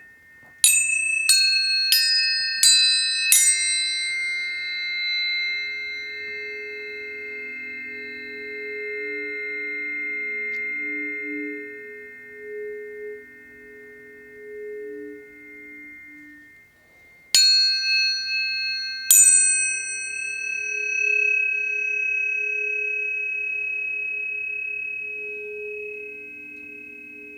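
Tuning forks struck one after another: five quick strikes in the first few seconds, each a bright click followed by a clear ringing tone that holds and slowly fades. Two more strikes come about two-thirds through, over a low wavering hum.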